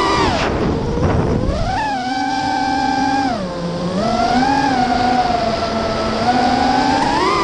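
Lumenier QAV-R racing quadcopter's brushless motors and propellers whining, heard from the onboard camera, on 6S LiPo power. The pitch follows the throttle: it drops away about half a second in, climbs back near two seconds, dips again around three and a half seconds, then rises toward the end.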